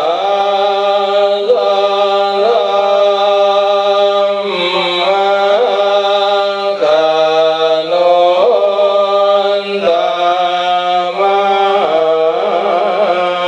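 A Buddhist monk chanting into a microphone in one male voice, holding long notes that step up and down in pitch with short melodic turns between them.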